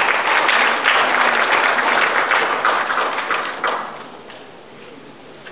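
Audience applauding, many hands clapping in a dense patter that dies away about four seconds in.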